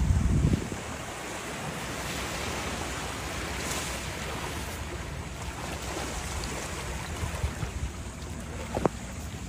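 Wind buffeting the microphone over the wash of surf on the shore, with a strong low gust in the first half second. A short sharp sound stands out near the end.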